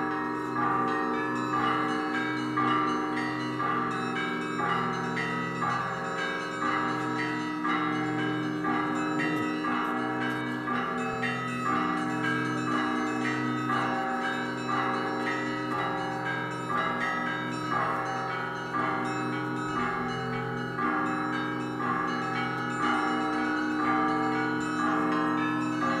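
Russian Orthodox festive church-bell ringing (zvon): many bells of a monastery belfry rung together, the smaller bells struck in a fast, steady repeating rhythm over the long-ringing deeper bells.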